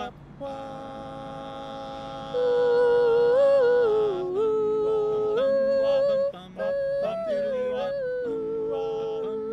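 Music: an a cappella vocal group humming held chords, with a lead voice carrying a melody above them that moves in small steps.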